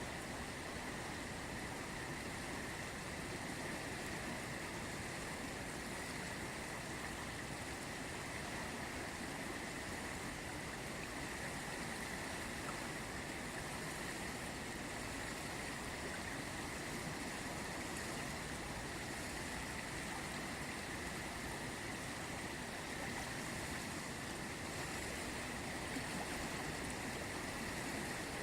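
Ganges river flowing, a steady, unbroken rush of water.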